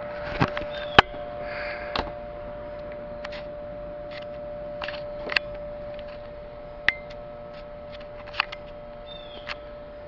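Recorded Thunderbolt air-raid siren played through a laptop speaker: a steady two-note tone, with scattered sharp clicks and a few short chirps over it.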